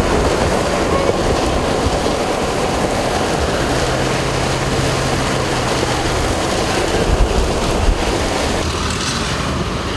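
Steady rush of storm wind and rain on the microphone, mixed with the road and running noise of a moving vehicle; a low, steady hum joins for a few seconds in the middle.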